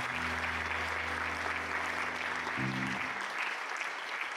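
Audience applauding, over low held notes from the band's instruments that end about three seconds in.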